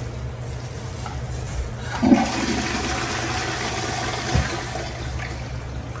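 Kohler Veil wall-hung toilet flushing: a sudden rush of water about two seconds in, running for about three seconds with a short knock partway through, then tapering off as the bowl swirls. A steady low hum sits underneath.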